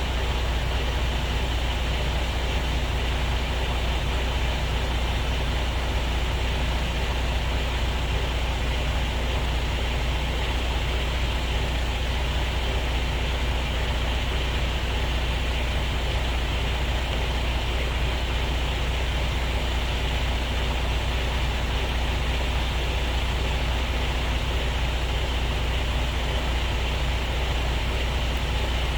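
Truck's diesel engine running steadily, a constant low hum that does not change.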